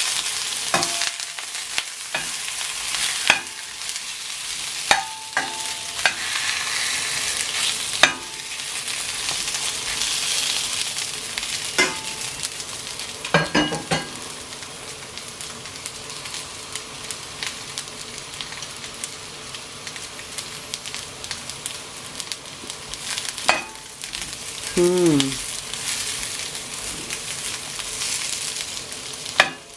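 Chicken sausages sizzling in hot olive oil in a large pan, a steady frying hiss. Scattered sharp clicks come from a utensil turning them against the pan, and there is a brief falling squeak near the end.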